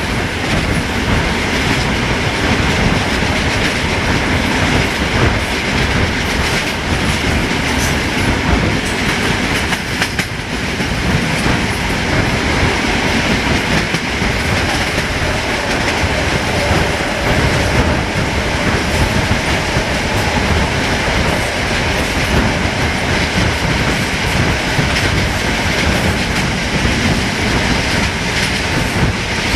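Diesel-hydraulic locomotive-hauled passenger train running along the line, heard from aboard: a steady rumble, with the wheels clattering over the rail joints.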